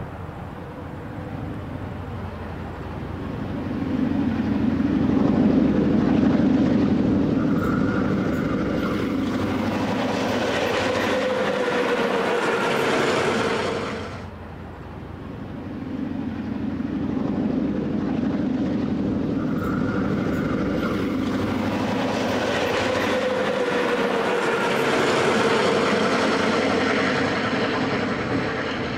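Two GM class diesel-electric locomotives with EMD 567 two-stroke engines running light, their engine sound building as they approach and pass, with a wavering whine over the engine note. The sound cuts off abruptly about halfway through, then a second similar approach builds and holds near the end.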